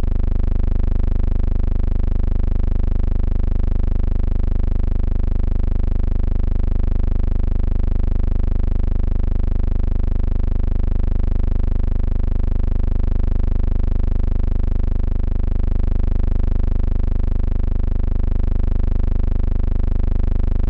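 A loud, steady buzzing hum with many overtones that never changes in pitch or level, even across the cuts between shots.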